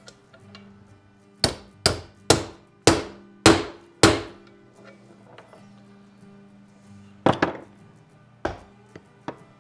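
Hammer striking a bearing driver to drive a transmission bearing home into a Triumph 650's aluminium crankcase. There are six sharp blows in quick succession, then, after a pause, four more spaced further apart near the end, seating the bearing down to its snap ring groove.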